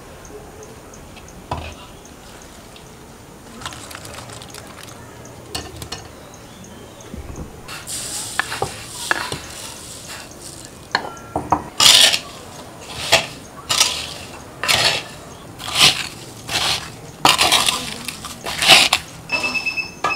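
Granulated sugar poured over cut roselle calyces in a clay bowl with a soft hiss, followed by a run of loud scraping strokes against the pot, about one a second, over the second half.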